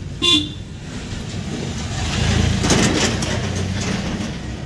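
Car engine and road noise heard inside the cabin as the car drives slowly along a rough village lane, the rumble growing louder about halfway through. A short beep sounds just after the start.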